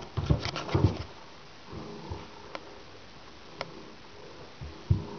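A small toy ball thrown into an empty bathtub, knocking several times in quick succession in the first second as it bounces off the tub, then quieter with a few single light clicks and a soft thump near the end as the cat moves on the bath mat.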